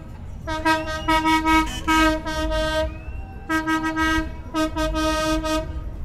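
A horn honking in a run of short blasts on one steady pitch, about six toots, with a rising whoop about a second in and another near three seconds in. Low wind and street rumble lie beneath.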